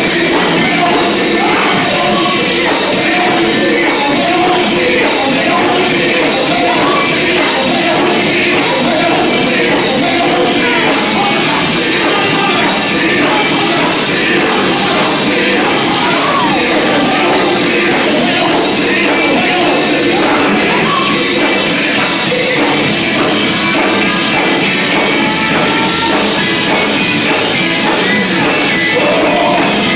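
Gospel group singing with a full band backing them: loud, dense music that runs on without a break.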